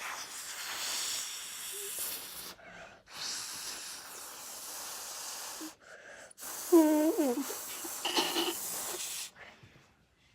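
A whoopee cushion being blown up by mouth: three long breaths of air hissing into it, each about two and a half seconds, with short pauses between them. A short wavering squeal, the loudest sound here, comes about two-thirds of the way through.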